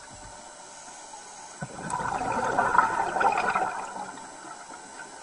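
A rush of water swells about a second and a half in and fades out about two seconds later, over a steady background hiss.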